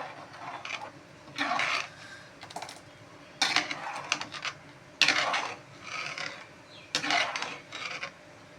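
Spoon scraping and mashing the curry mixture against the pan in a series of short rasping strokes, each about half a second long.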